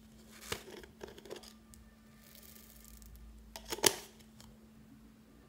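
Clicks and rattles of a plastic tube of foam beads being handled and tipped into a glass dish, with the loudest clatter of clicks just before four seconds in.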